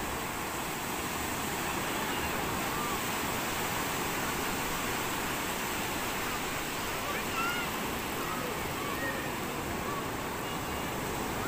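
Surf breaking and washing in over shallow water along a sandy beach, a steady rush of waves, with a few faint short calls in the distance.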